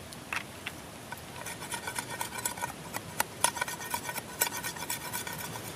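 A cleaver blade shaving and notching green wooden skewers: a dense run of irregular sharp clicks and scrapes with a slight ringing edge, starting about a second in and stopping near the end.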